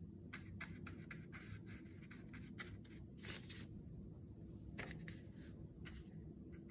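Large paintbrush stroking across watercolour paper: a string of faint, short scratchy swishes of the bristles, with one longer stroke about halfway through.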